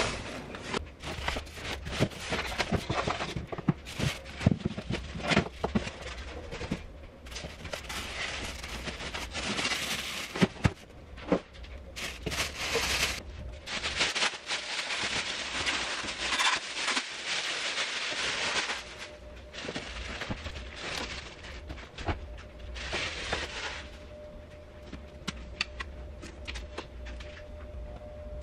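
Packaging being handled while unboxing an espresso machine: styrofoam and cardboard scraping and creaking with scattered knocks and clicks, then a thin plastic bag rustling and crinkling as it is pulled off the machine.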